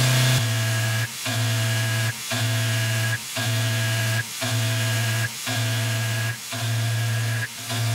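Tormach PCNC mill cutting O1 tool steel with an end mill, its sound sped up in fast-forward: a steady hum with short dropouts about once a second.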